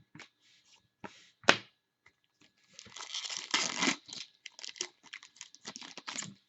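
Trading card packaging being handled: a few sharp clicks and a loud snap about one and a half seconds in, then a dense crinkling tear and crackling through the second half.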